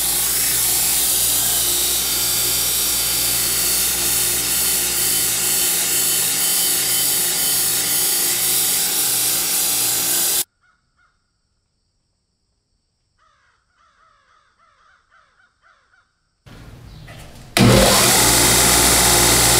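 Bench belt sander running steadily with a steel tube being sanded against the belt. About ten seconds in it cuts off suddenly, leaving near silence with faint chirping, and near the end the belt sander starts up again and runs loudly.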